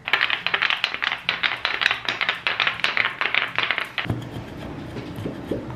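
Wooden massage tools (a roller of wooden blocks and a wooden cup) worked rapidly over bare skin, giving a fast run of short tapping, rubbing strokes. About four seconds in, the strokes stop and give way to a quieter, lower rubbing.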